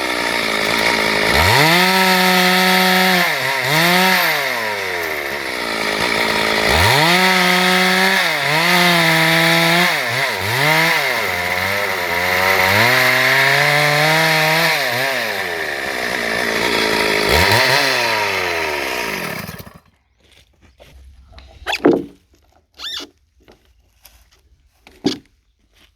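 Stihl MS 382 two-stroke chainsaw running at high revs and cutting wood, its pitch sagging as it bogs under load in the cut and climbing back each time it eases, over and over. The engine stops abruptly about twenty seconds in, and a few knocks follow.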